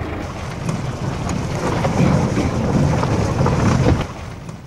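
Loud, rough wind rumble buffeting the camera microphone outdoors, with a few faint clicks; it grows stronger in the middle and falls away suddenly about four seconds in.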